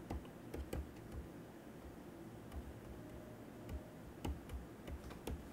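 Faint, irregularly spaced clicks of computer input while a sum is entered into an on-screen calculator emulator, over low room noise.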